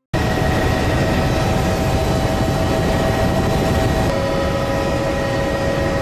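Steady engine and airframe noise inside a small aircraft's cabin in flight, starting abruptly. The steady tones in it shift slightly about four seconds in.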